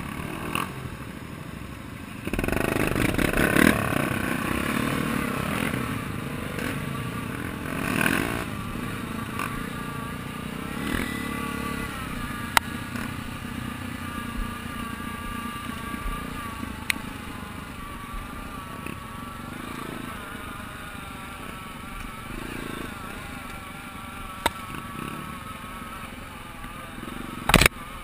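Honda XR 250 Tornado single-cylinder four-stroke dirt bike pulling away about two seconds in, its engine revving up through the gears, then running at a steady, wavering speed along a rough dirt track. A few sharp knocks come through, the loudest near the end.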